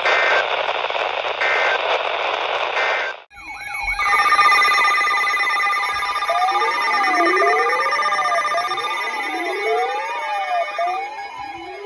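NOAA Weather Radio end-of-message data bursts, three short buzzy chirps about a second apart over radio hiss. After a brief dropout, several electronic alarm tones sound together: steady high tones with repeated warbling and rising siren-like sweeps.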